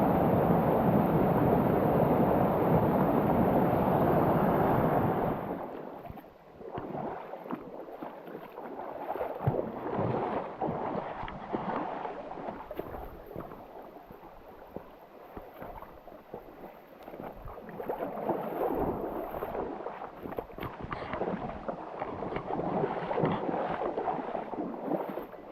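Rushing water of a creek's falls, a steady rush for about five seconds, then a sudden change to quieter, uneven running water with scattered small clicks.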